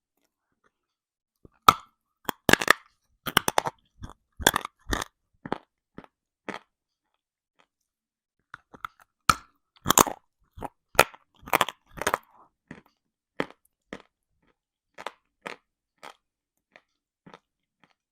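A person biting and chewing dry lumps of edible earth (chalk-type mineral), close to the microphone, with sharp crunches. A quick run of loud crunches starts about a second and a half in. A second loud run follows after a short pause, then the crunches thin out and grow softer as the chewing goes on.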